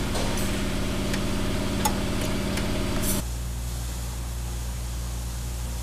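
Sharp metallic clicks of a wrench on the brake-line fittings, one at the very start and another about two seconds in, over a steady mechanical drone with a regular low pulse. About three seconds in the drone cuts off and a lower, steadier hum takes over.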